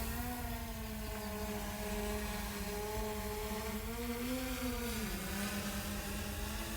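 DJI Air 2S quadcopter's propellers whining in flight, its pitch rising briefly about four seconds in and dropping back as the motors change speed.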